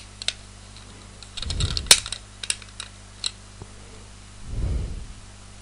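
Irregular hard clicks and taps as the pink plastic pin pieces of a flower loom are handled and fitted onto its base, the sharpest click about two seconds in, with two dull handling thuds.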